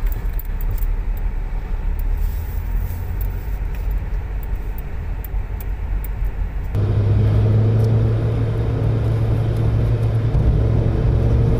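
Road vehicle driving, likely a car: a steady low road rumble, and from about seven seconds in a steady low engine hum.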